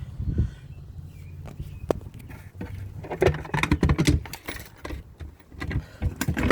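Clicks, taps and rattles of hand work with tools and small metal parts, busiest in the second half and ending in a sharp knock, over a steady low hum.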